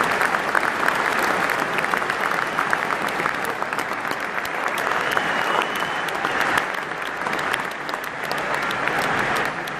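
Large stadium crowd applauding, dense steady clapping that eases off a little near the end.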